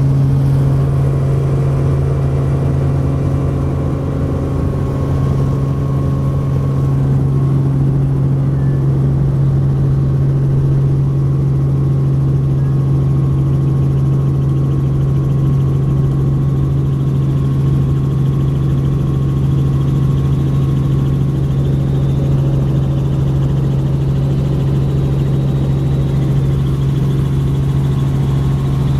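Helicopter engine and rotor heard from inside the cabin: a loud, steady low hum that holds unchanged through lift-off and the climb.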